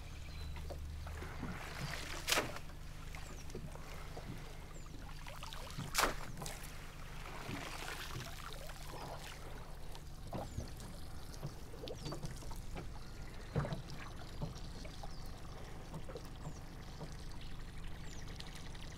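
Water pouring and dripping off a cast net as it is hauled out of the water onto the boat, with a few sharp knocks, two of them about two and six seconds in. An outboard motor idles low underneath.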